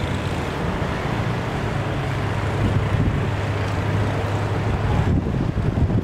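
A vehicle driving on a snow-covered street: a steady low engine hum with tyre noise on the snow. The higher hiss falls away about five seconds in.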